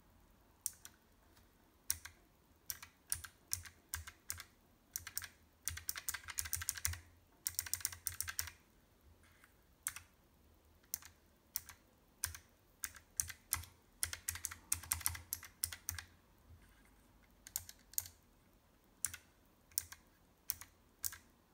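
Keystrokes on a Keychron K1v4 low-profile mechanical keyboard with Gateron blue switches: single sharp key clicks with short pauses, broken by a few bursts of rapid typing.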